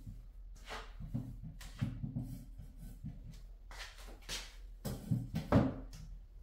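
Fabric rustling as a throw blanket is handled and smoothed over an upholstered bench, with a few soft low thumps, the loudest about five and a half seconds in, as she shifts and steps. A faint steady low hum sits underneath.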